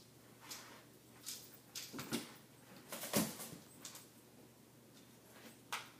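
A telescoping metal backdrop stand being handled and set in place: a handful of short knocks and scrapes, the loudest a little past halfway.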